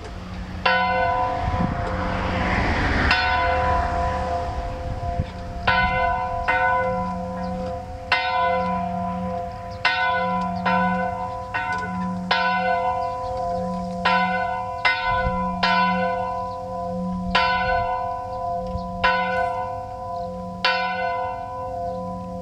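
Denmark's oldest working church bell, a 900-year-old beehive-shaped bell from the early 1100s, rung gently by rope, its clapper striking unevenly about once every second or so. Each stroke rings on under a low pulsing hum, a tone that is not a good sound for a bell.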